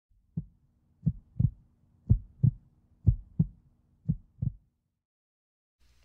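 Heartbeat sound effect: after one opening thump, pairs of low lub-dub thumps come about once a second, four times, over a faint steady low hum. The sound stops about three-quarters of the way through.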